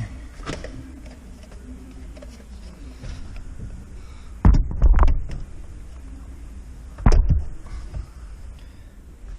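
Knocks and clunks of hand work on a truck's engine-bay relay terminals, with two loud thumps, one about halfway through and one about three-quarters through, over a low steady rumble.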